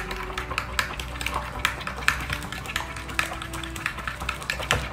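Metal spoon stirring runny mango glaze in a glass bowl, clinking against the glass in quick irregular taps, several a second.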